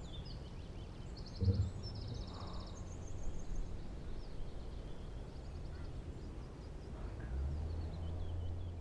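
Outdoor ambience of small birds chirping and trilling over a steady low rumble, with a short thump about a second and a half in.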